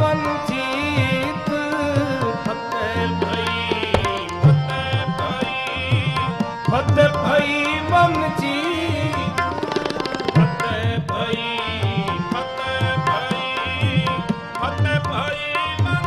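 Sikh kirtan: tabla playing a running rhythm under held harmonium notes, with a man's voice singing.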